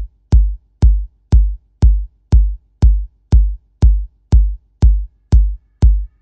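Electronic dance music: a lone drum-machine kick drum beating steadily, about two beats a second.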